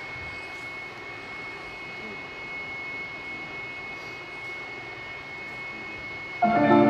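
Steady machinery hum of an indoor ice rink's ventilation, with a thin constant high whine. About six and a half seconds in, the skaters' music starts suddenly with sustained, ringing chords.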